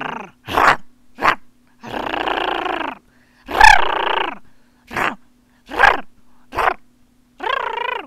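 Angry pug sounds made by a human voice: a string of about nine short, rough growls and grunts. A longer one comes about two seconds in and the loudest about three and a half seconds in.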